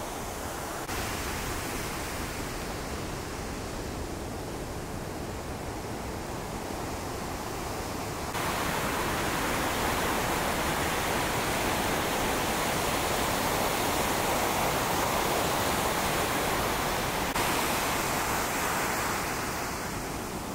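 Heavy surf from a hurricane swell breaking and rushing as whitewater, a steady wash of noise. It jumps in level abruptly about a second in and again about eight seconds in, then falls back near the end.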